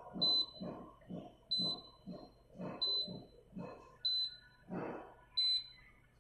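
Fingerprint padlock beeping once at each finger press on its sensor: five short, high beeps about a second and a half apart, the lock confirming each scan while a new fingerprint is enrolled.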